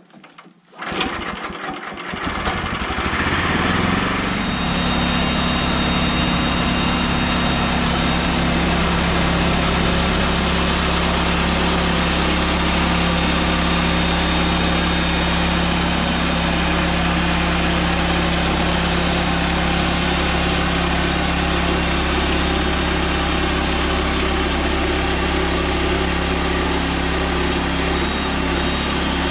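Woodland Mills HM126 sawmill's gas engine starting about a second in, sputtering and revving up over a couple of seconds, then running steadily at high speed.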